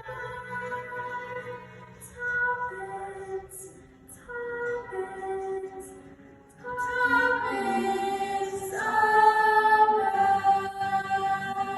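Slow singing with long held notes that change pitch step by step, louder in the second half.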